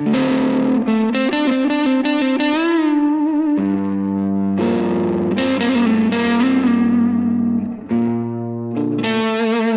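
Rock music: distorted electric guitar riff with effects, held notes and a wavering bent note about three seconds in.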